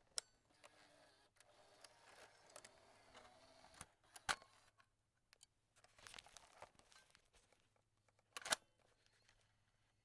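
Cassette being ejected from a cassette player: sharp mechanical clicks of the eject mechanism and plastic cassette, one near the start, a strong one about four seconds in, and the loudest, a quick double click, near the end, with faint rattling and scraping between.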